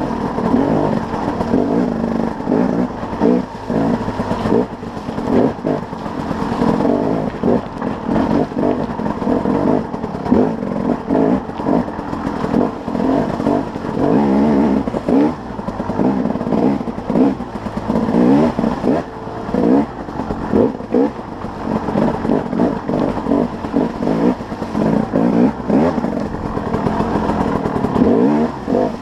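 2011 KTM 300 XC-W dirt bike's two-stroke single-cylinder engine ridden hard, revving up and dropping back again and again as the throttle is opened and closed.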